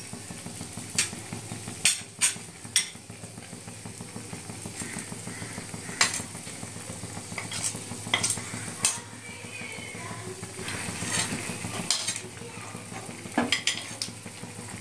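A metal spoon clinking against a plate and the rim of a metal pan as fried vegetables and lentil dumplings are spooned into the cooking liquid, about ten sharp clinks in all. Under them runs the steady hiss of the pan cooking on the stove.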